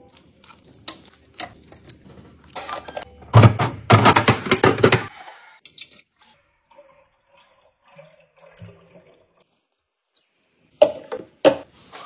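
Hands handling grocery packaging and clear plastic containers on a stone countertop. A few light clicks, then a loud burst of clattering and crinkling lasting about a second and a half, then near quiet, and two sharp knocks near the end.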